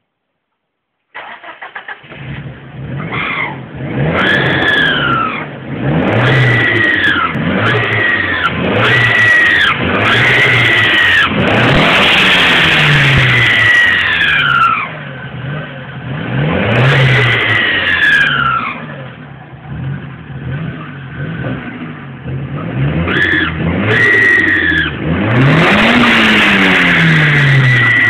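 Nissan CA18DET 1.8-litre turbocharged four-cylinder engine revved over and over, each rev rising and falling with a high whistle that sweeps up and down with it. This is the awful noise that the owner puts down to a leaky or blown intake plenum gasket.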